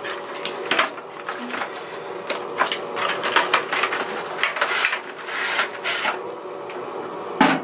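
Cardboard box and clear plastic blister packaging being handled and opened, with irregular clicks, crinkles and rustles of cardboard and plastic, and a longer rustling slide about five seconds in as the plastic tray comes out of the box.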